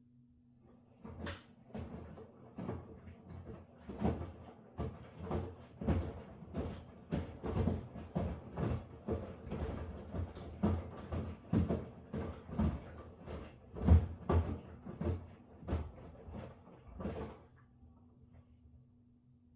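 Miele washing machine drum turning, the laundry tumbling and thudding about twice a second over a steady low motor hum. The thudding stops near the end, leaving the hum.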